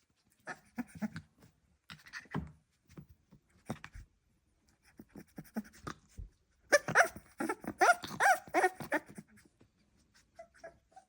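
Staffordshire bull terrier puppy making short grunts and snuffles, then, about seven seconds in, a run of high squeaky whines and yelps that rise and fall in pitch.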